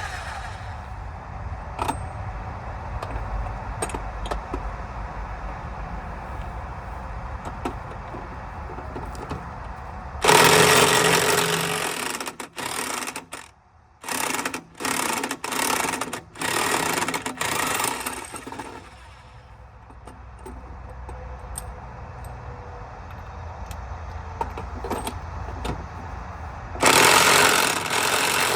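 A handheld power tool run in a series of loud, rattling bursts of a second or two each, starting about ten seconds in and stopping just before twenty seconds, with one more burst near the end. Under it there is a steady low hum and a few light metallic clicks.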